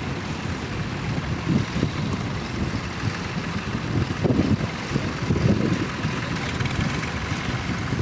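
Vintage tractor engine running steadily as it pulls a plough, with gusts of wind buffeting the microphone, strongest about halfway through.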